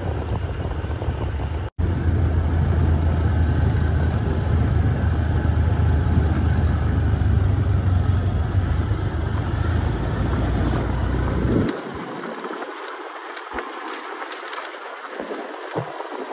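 Waterfall rushing water: a loud, steady roar with a deep rumble. About twelve seconds in, the rumble drops away, leaving a lighter hiss of splashing water.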